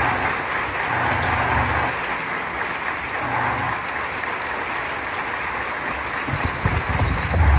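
Audience applauding, an even clatter of many hands, with dull low thumps underneath that come more often near the end.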